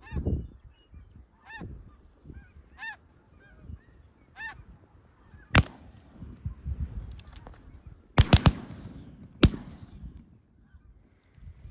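Snow geese honking in repeated high, yelping calls. A few seconds in come several sharp, loud bangs: one, then a quick run of three, then one more.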